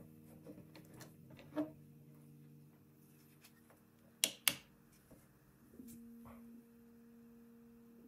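A few handling clicks over faint, slow background music made of sustained tones that shift pitch now and then. The loudest sound is a pair of sharp clicks about four seconds in, with a softer click near 1.6 s and another near 6 s.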